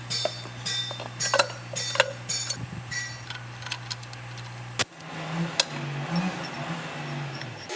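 Light metallic clinks and taps of hand tools and steel axle parts being handled, some ringing briefly, over a steady low hum that cuts off about five seconds in.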